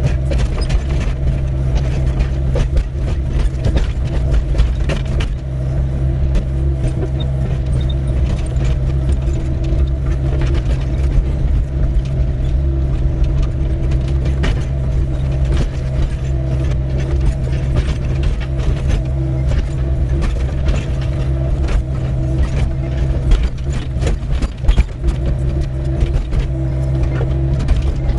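Doosan 55W wheeled excavator's diesel engine running steadily while digging, with many short clanks and scrapes of the bucket working stony ground.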